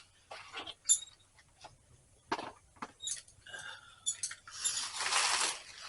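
Discarded goods being handled and pulled about inside a dumpster: a few sharp clinks and knocks, the loudest about a second in, then a longer rustle near the end.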